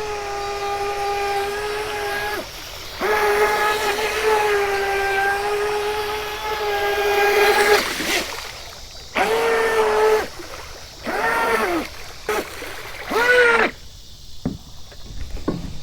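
RC racing boat's electric motor whining at speed: two long steady runs at full throttle, then three short throttle bursts, the last two rising and falling in pitch.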